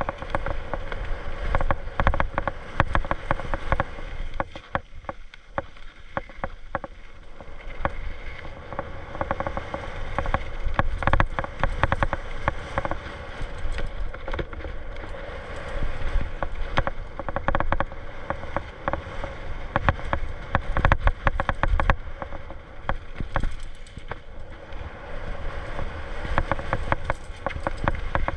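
Mountain bike descending a rough dirt singletrack: tyres rolling over roots and rocks with constant rattling and knocking from the bike's frame and chain.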